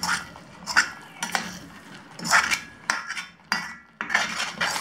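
Spoon stirring thick masala gravy in a pan, scraping and clinking against the pan in repeated strokes about once a second.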